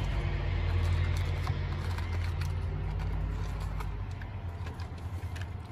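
A vehicle engine running close by, a steady low rumble that fades away about four seconds in. Faint crinkles of a foil wipe packet being handled sound over it.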